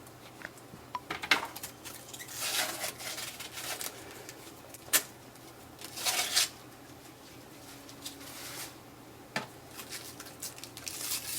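Packing tape and protective plastic being peeled and crinkled off a new inkjet printer's housing, in short rustling bursts with a few sharp clicks and taps in between.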